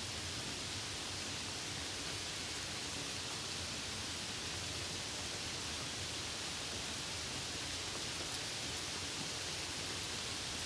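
Steady rain falling: a continuous, even hiss.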